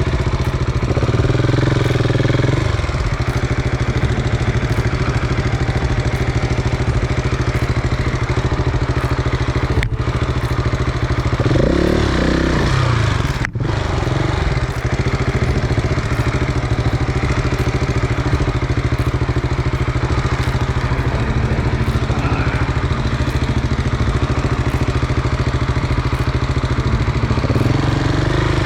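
KTM 690's single-cylinder engine running steadily as the motorcycle climbs a loose rocky track, with the revs rising and falling about a second in, around twelve seconds in and near the end.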